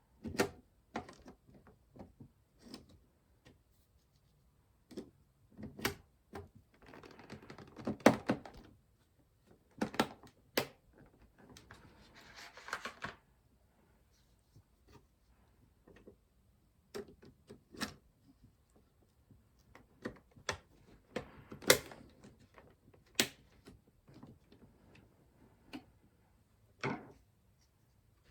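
Scattered plastic clicks and taps with a couple of short rustling scrapes, from handling DDR4 RAM sticks and fitting them into a motherboard's memory slots. The sharpest click comes a little past the middle.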